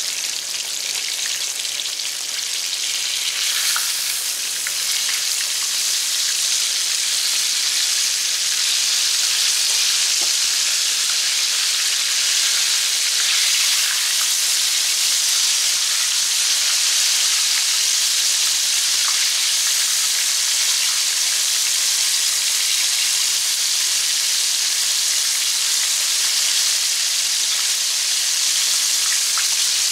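Breaded flounder frying in hot oil in a cast iron skillet: a steady, loud sizzle that grows a little louder a few seconds in.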